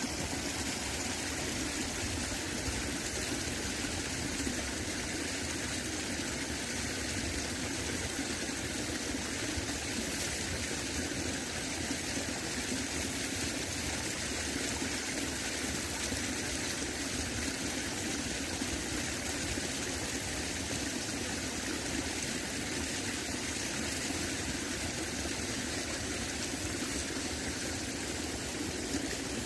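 Running water flowing steadily: a continuous, even rush with no breaks.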